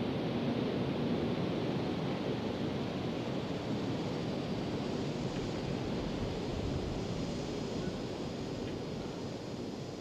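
A steady rushing noise with no clear tone or beat, slowly fading toward the end.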